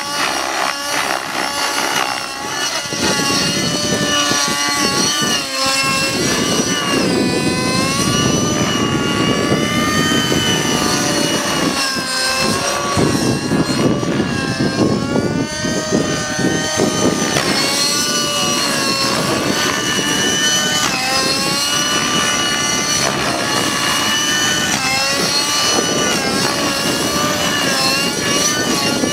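Align T-Rex 600N nitro RC helicopter's 50-size glow engine and rotors flying hard 3D aerobatics: a high engine whine that swoops up and down in pitch over and over with the manoeuvres and passes. A rough rushing noise underneath grows stronger about three seconds in.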